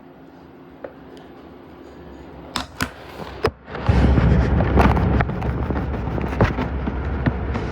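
Samsung washing machine shaking and making noise: a few sharp knocks, then about four seconds in a loud low rattling with repeated bangs sets in and keeps going.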